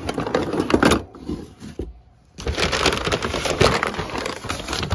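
Handling noise of a phone rubbing against a jacket sleeve and hand: dense rustling and crackling with knocks, dropping to a short lull about two seconds in before starting up again.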